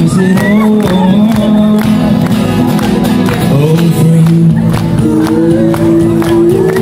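Live street busking: amplified acoustic guitar strummed in a steady rhythm, with a male voice singing a melody over it.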